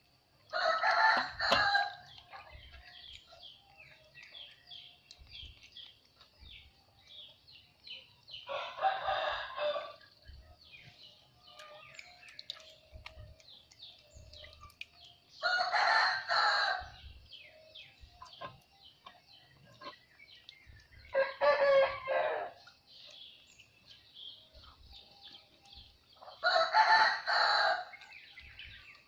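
A rooster crowing five times, several seconds apart, over a faint, steady high chirping of birds or insects.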